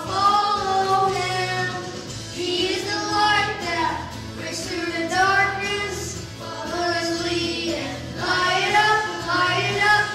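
A woman and two children singing a song together into microphones, in sung phrases with held notes.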